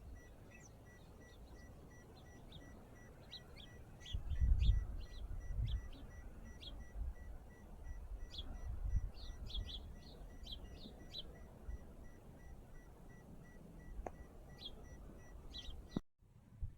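Small birds chirping outdoors in short, high, scattered chirps. Bursts of low rumble come through a few seconds in and again past the middle.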